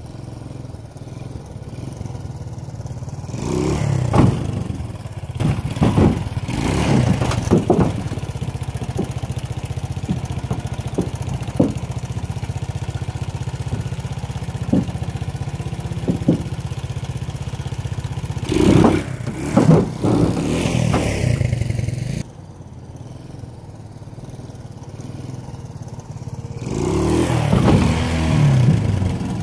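Honda TLR trials motorcycle's single-cylinder four-stroke engine running at low revs with repeated throttle blips as it is ridden along an aluminum jon boat, with a few sharp knocks and clatters from the tyres and frame on the aluminum hull. The engine sound drops low for a few seconds after the middle, then rises again near the end.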